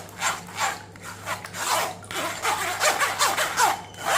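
Blended beetroot, carrot and tomato pulp being scraped and pressed against a mesh kitchen sieve to strain out the juice, in repeated rasping strokes about two a second.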